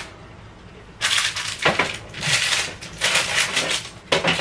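A sheet pan of oven bacon being slid off the oven's bottom rack with gloved hands: about four short bursts of scraping and crinkling, starting about a second in.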